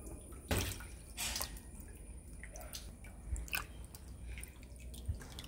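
Water splashing and dripping in a plastic basin as cleaned pomfret fish are rinsed and water is poured in from a mug, in several separate splashes.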